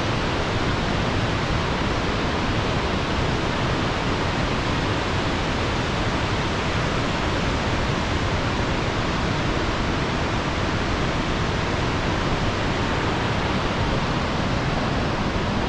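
Large waterfall in heavy flow, a steady, loud rush of falling water.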